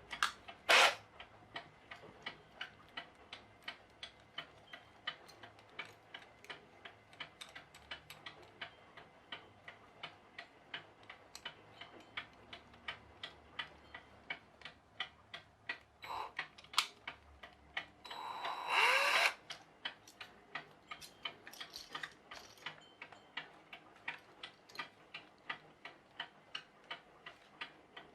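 A clock fitted with 3D-printed replacement parts ticks steadily, about two to three ticks a second. A single loud knock comes about a second in. About two-thirds of the way through, an electric drill spins up briefly with a rising whine.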